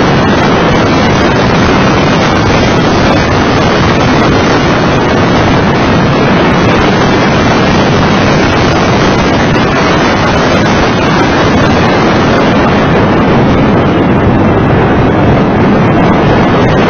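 Loud, steady wind roar on the onboard camera's microphone as a Mitsubishi FTO GPX is driven at speed on track, with the car's engine and tyre noise running beneath it.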